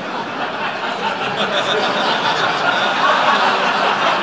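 A live comedy audience laughing together at a punchline. The laughter swells over the first second or so and then holds as a loud, steady crowd sound.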